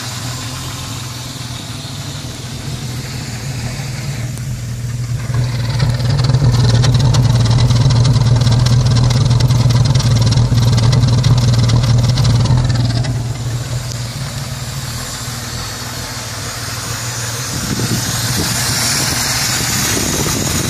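Carbureted 4.0 engine idling steadily, its sound growing louder for several seconds in the middle without a change in pitch. The owner thinks it sounds like a vacuum leak around the carburetor.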